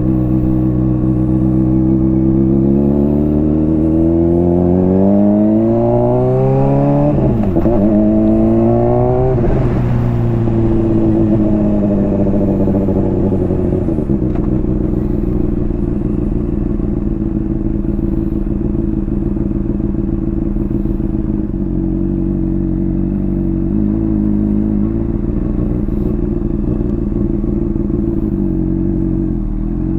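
Honda CBR600RR inline-four through a slip-on exhaust, heard from the rider's position. The engine revs up as the bike accelerates, the pitch climbing over several seconds, then drops back. It holds a steady note through the second half and starts climbing again at the very end.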